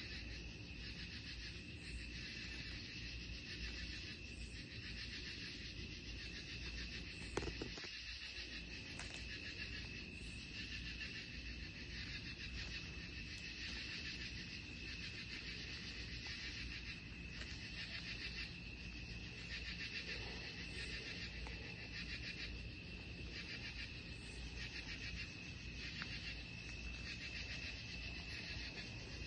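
Night insect chorus: a steady high cricket trill under a pulsing insect call that swells and fades every second or two. A single knock about seven seconds in.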